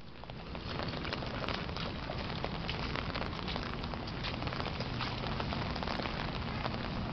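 Rain falling on a pink umbrella held just overhead: a dense patter of many small drop hits over a steady hiss, swelling over the first second and then holding steady.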